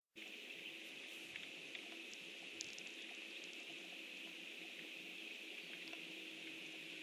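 Steady outdoor pond ambience from a livestream microphone: a continuous high-pitched hiss with a few faint scattered ticks. It cuts in abruptly just after the start.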